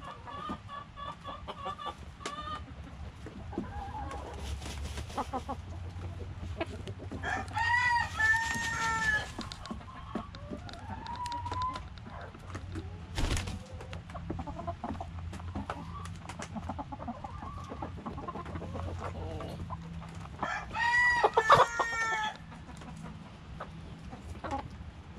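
Chickens clucking, with two louder drawn-out calls about eight and twenty-one seconds in, and a sharp tap about thirteen seconds in.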